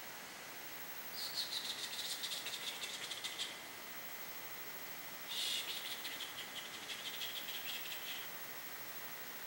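A high, rapid buzzing trill in two bursts of two to three seconds each, the first about a second in and the second past the middle, over a faint steady hiss.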